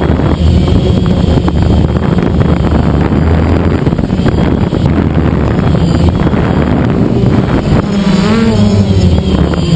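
DJI Phantom quadcopter's motors and propellers running loud and steady in flight. The pitch wavers up and down near the end.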